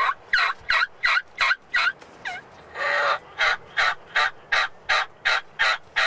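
Turkey yelping: a long, evenly spaced run of short calls, nearly three a second, with one longer, louder call about three seconds in.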